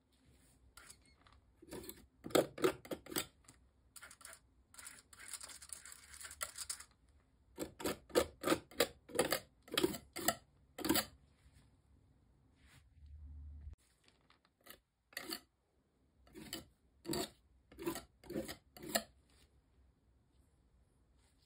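Paint being worked onto a textured canvas: a tool scratching and scrubbing across the rough surface in three runs of quick strokes, about three a second.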